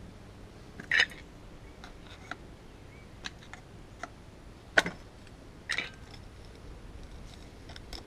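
Scattered sharp metal clinks and taps from handling the parts of a disassembled ECM condenser fan motor, about six in all, the loudest just past halfway.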